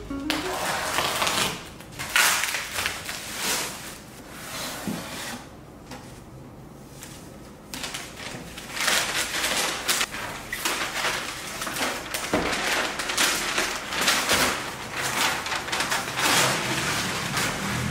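Brown kraft packing paper crinkling and rustling in irregular bursts as rolled-up items are unwrapped by hand, with a quieter lull partway through.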